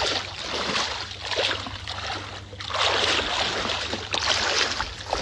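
Outdoor wind and water noise: small waves washing in the shallows around a beached boat, rising and falling in surges, over a steady low rumble.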